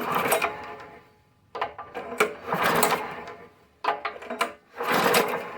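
Recoil starter on a Harbor Freight small engine pulled three or four times in quick succession, the rope whirring and the engine turning over with its spark plug removed, to check for compression puffing out of the plug hole.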